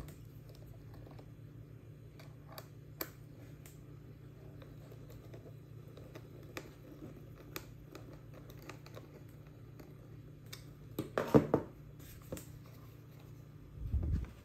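Small screwdriver clicking and scraping as it turns the screws in the plastic back of a multimeter, with scattered light ticks. A louder clatter of handling comes about eleven seconds in, and a low thump near the end as the meter is turned over onto the table; a steady low hum runs underneath.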